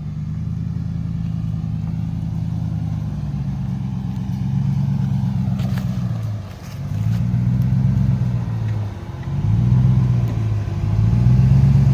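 Truck engine running at low speed with the throttle worked on and off: its pitch drops and climbs again twice in the second half, getting louder toward the end.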